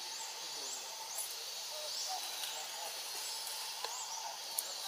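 Forest ambience: a steady hiss with a short high chirp repeating about twice a second, and a couple of faint clicks near the end.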